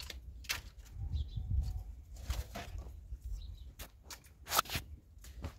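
Dry firewood sticks knocking and scraping against each other as they are pulled from a stacked pile: a handful of separate clatters, the loudest near the end, over a low rumble.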